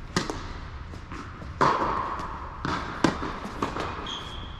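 Tennis serve and rally on an indoor court: a serve struck just after the start, then sharp racket hits and ball bounces every second or so, each echoing in the hall. A brief squeak, likely a shoe on the court surface, comes near the end.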